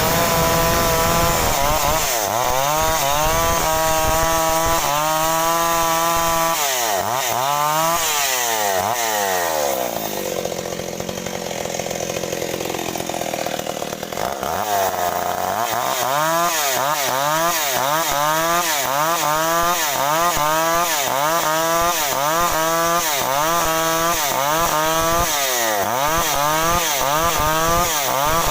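Stihl MS 381 two-stroke chainsaw cutting through jengkol wood, its engine pitch rising and falling in a quick, regular cycle as the bar works the cut. About a third of the way in the engine drops lower and quieter for several seconds, then the rising and falling resumes.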